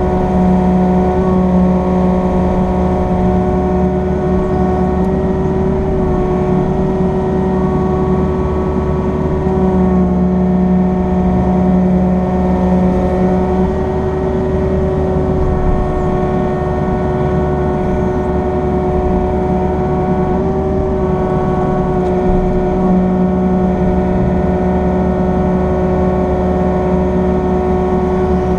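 Excavator engine and hydraulics running steadily inside the cab, with a constant whine over the engine note. A deeper hum swells and drops away about three times as the boom and grapple are worked.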